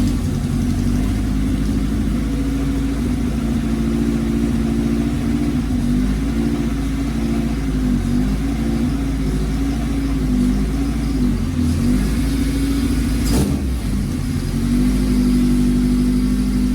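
1996 Acura Integra's four-cylinder engine, just started, idling with small throttle blips that make its pitch waver through the middle, run up to check how much the engine rocks on freshly fitted aftermarket engine mounts. A single sharp knock about thirteen seconds in.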